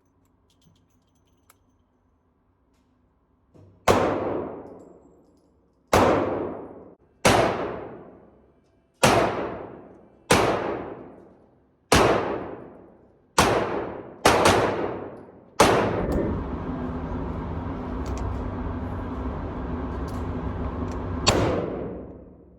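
Revolver gunshots, nine shots fired at an uneven pace about one to two seconds apart, each ringing out afterwards. Then a steady rushing noise for about five seconds, broken by one more sharp bang near the end.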